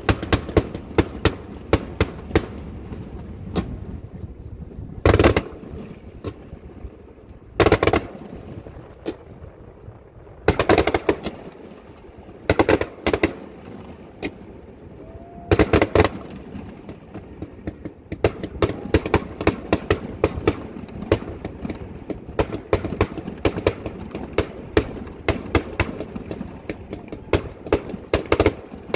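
Aerial fireworks display: a continual run of sharp cracks and pops from bursting shells, with heavier booms every couple of seconds through the first half and a dense, rapid crackle in the last third.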